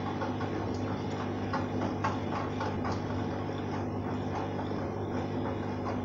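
Arçelik 3340SJ front-loading washing machine turning its drum in the wash stage: a steady motor hum, with the soaked load sloshing in the water and many small knocks and clicks from the tumbling drum.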